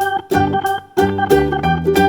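Background music: an upbeat tune with plucked-string and keyboard notes over a bass line and a steady beat.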